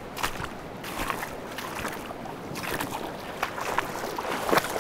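Irregular splashing and sloshing of someone wading through a shallow, rocky river, over the steady rush of the flowing water. The loudest splash comes near the end.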